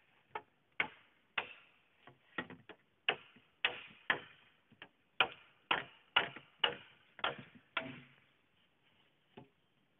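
Sharp, ringing blows on bamboo, about two a second, which stop about eight seconds in, with one faint knock after.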